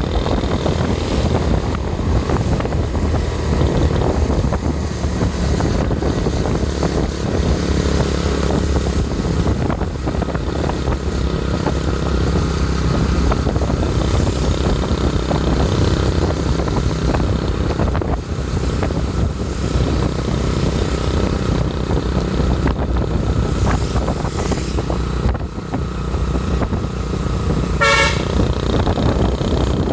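Steady engine and road noise of vehicles on the move, with a brief horn toot near the end.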